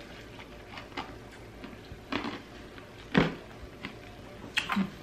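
A person chewing a mouthful of crushed ice: a series of short crunches, roughly one every half second to a second, the loudest a little past three seconds in.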